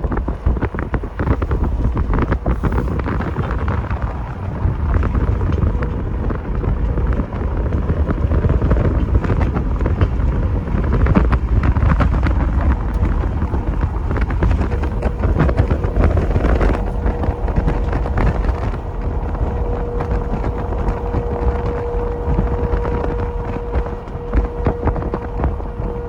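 Strong wind buffeting the microphone in gusts. A steady, distant tornado warning siren tone comes up faintly underneath and grows clearer in the second half.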